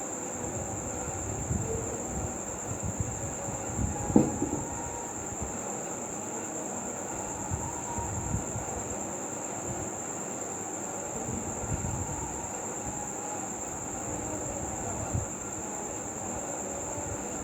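Close-miked eating sounds: irregular chewing and mouth noises with soft low thuds, and one sharper knock about four seconds in, over a steady high-pitched whine.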